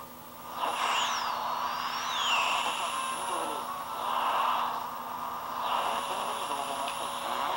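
Shortwave broadcast heard through a homemade 1T4 regenerative receiver: hissing static with a muffled station under it. About a second in, whistles slide down and back up in pitch while the set is tuned between two stations only 10 kHz apart.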